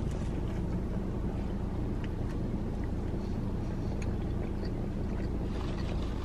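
Steady low rumble of a running vehicle engine, with a few faint small clicks.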